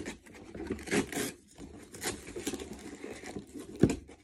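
Cardboard toy box being handled and its end flap pried open: irregular scraping, rustling and tearing of cardboard, with a dull knock near the end.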